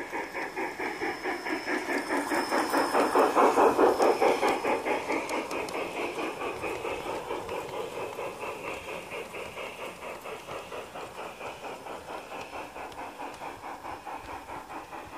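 G-scale model steam locomotive chuffing in quick, even beats as it hauls a train of wagons past, loudest about four seconds in and then fading as it draws away.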